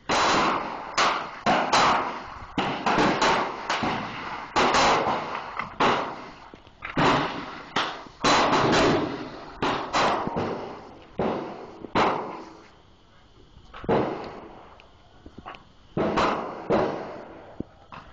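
Gunfire at a shooting range: an irregular string of sharp shots, often less than a second apart, each with a short echoing tail, with a lull of a couple of seconds past the middle.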